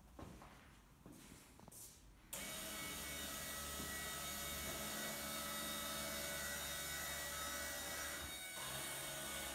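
A few faint knocks, then a dense steady hiss with several held tones starts suddenly about two seconds in and dips briefly near the end: the electronic soundscape of an interactive sound installation.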